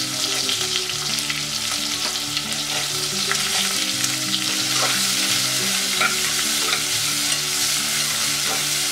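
Sliced onions sizzling as they fry in hot ghee in an aluminium pressure cooker, being fried to turn crisp. A metal slotted spoon stirs them, with a few sharp clicks against the pot.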